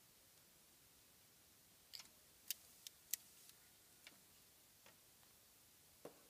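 A few sharp clicks and taps over near silence. Four or five come in quick succession about two seconds in, then three fainter ones spread over the next few seconds.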